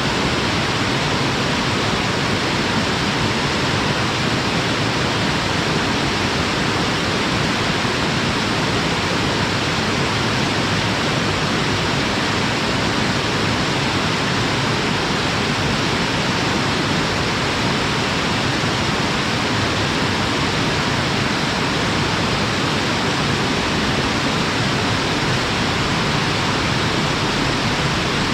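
Waterfall: a steady, even rush of falling water plunging into a pool, unchanging throughout.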